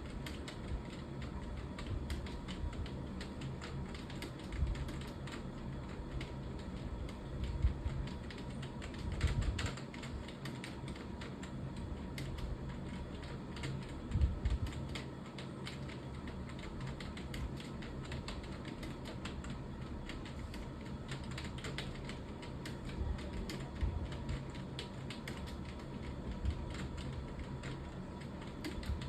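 Continuous typing on a computer keyboard: a steady, quick patter of keystrokes, with a few louder low thumps partway through.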